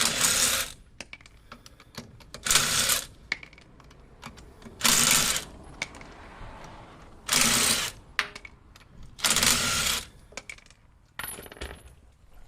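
Impact wrench run in five short bursts about two and a half seconds apart, spinning lug nuts on a wheel being swapped.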